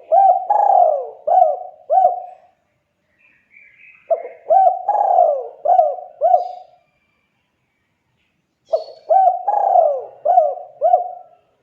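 Spotted dove cooing: three phrases of about five coos each, a couple of seconds apart.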